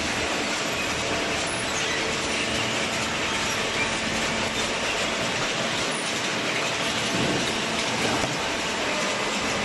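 Steady mechanical noise of a hydraulic cardboard baler running: an even hiss with a faint low hum underneath and no distinct strokes.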